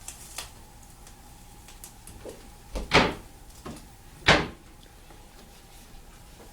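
Two solid knocks about a second and a quarter apart, like a cupboard door shutting or a lid being set down, over quiet kitchen background.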